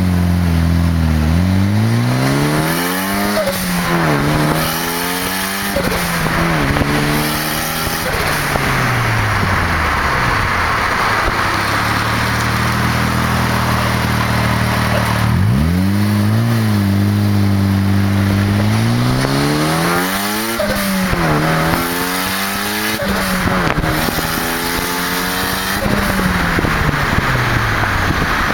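Turbocharged car engine revved in repeated throttle blips from idle, the revs climbing and dropping back. The blow-off valve vents with a sneeze-like hiss as the throttle closes. There are two bursts of blipping, from about 3 seconds in and from about 15 seconds in, with the engine settling back to idle between them.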